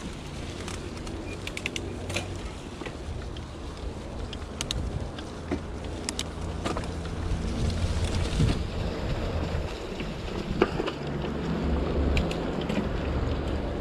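Riding noise from a 2021 Gravity FSX Comp mountain bike on a leaf-covered dirt trail: a steady low rumble of tyres and wind on the microphone, broken by scattered sharp clicks and rattles from the bike and from twigs and leaves under the wheels.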